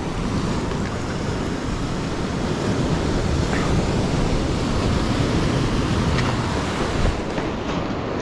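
Sea surf washing and breaking against rocks: a steady rushing noise, with wind buffeting the microphone.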